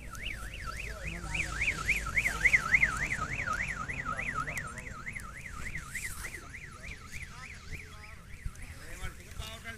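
Electronic warbling siren, like a car alarm, its pitch sweeping up and down about three times a second; it is loudest early on and fades out near the end.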